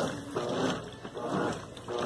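GE Super Capacity top-load washing machine agitating a mixed load in its wash cycle: the agitator swings back and forth, churning the water and clothes with a surge of sloshing and motor hum on each stroke, about three strokes in two seconds.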